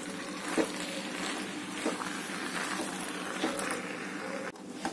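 A metal spatula stirring soaked sabudana (tapioca pearls) and potato pieces in a metal pan: a few soft scrapes and taps against the pan over a steady low hiss.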